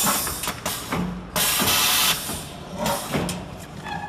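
Handling noise on a liquid packing machine's metal frame: a series of sharp clicks and knocks, with a loud rush of noise lasting under a second about a second and a half in.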